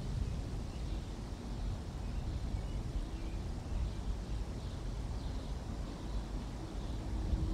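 Outdoor ambience: a low, steady rumble with faint, scattered bird chirps above it, and a faint steady hum coming in about halfway through.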